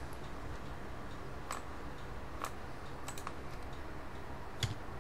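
A few separate clicks from a computer keyboard and mouse, spaced well apart, over a low steady hum.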